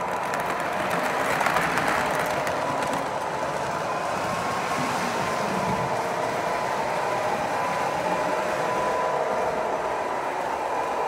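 Lionel O-gauge model trains running along three-rail track: a steady rumble of wheels on the rails with a steady whine.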